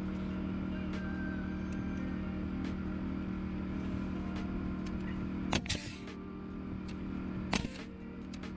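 Air compressor motor running steadily, feeding a pneumatic framing nailer that fires two sharp shots, about five and a half and seven and a half seconds in, driving nails through OSB subfloor sheathing into the wooden floor frame.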